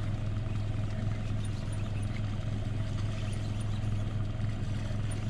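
Boat motor running steadily at constant speed: an even, unbroken low hum.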